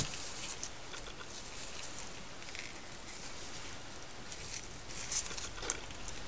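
Light handling of a small metal tattoo machine: a few soft clicks and rubbing of gloved fingers on the frame and coils, over a steady background hiss.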